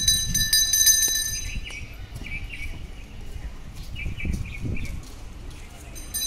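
A pooja hand bell ringing in quick strokes for about the first second, then birds chirping in short bursts.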